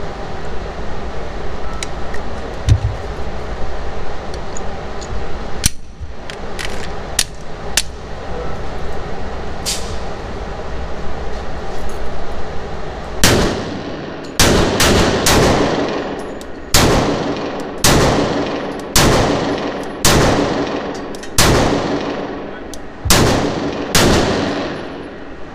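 Glock 19 9mm pistol fired in an indoor range: about a dozen shots, roughly one a second, starting about halfway through, each with an echoing tail. Before the shooting there is a steady background hum with a few sharp clicks.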